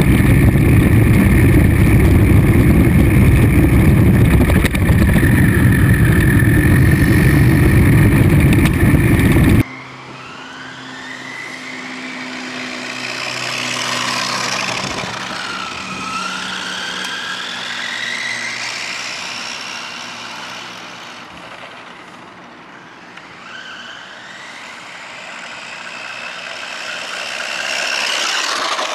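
A loud, steady rumbling noise, heavy in the low end, cuts off abruptly about ten seconds in. After it, a radio-controlled Mercedes racing truck model runs, its motor and drivetrain whining and gliding up and down in pitch as it speeds up and slows.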